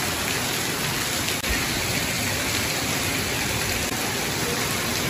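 Heavy rain falling steadily onto a corrugated metal shed roof, with water pouring off the eaves and gushing from the roof spouts.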